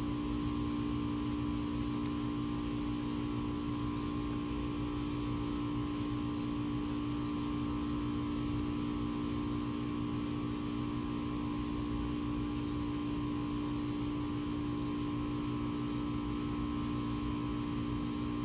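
A steady, even hum, with a faint high-pitched pulse repeating about once a second.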